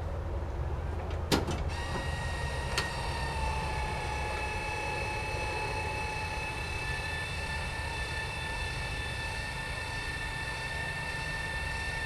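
Electric motor of a 1 HP battery garden tractor whining steadily, coming in after a sharp click about a second and a half in, over a low rumble; a second click follows shortly after.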